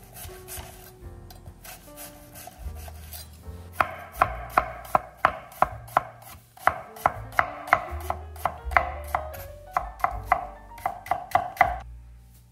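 Chef's knife cutting a sweet white onion on a wooden end-grain cutting board. It starts with lighter slicing cuts. From about four seconds in comes a quick run of sharp chops, about three a second, each blade strike on the wood ringing briefly. The chopping stops just before the end.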